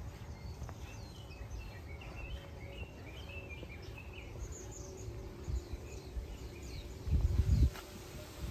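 Small birds chirping in many short, quick notes over a low rumble of outdoor background, with a brief loud low rumble on the microphone about seven seconds in.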